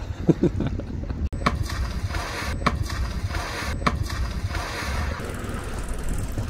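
Wind buffeting the microphone over water splashing as a rider tumbles off an electric hydrofoil board (e-foil).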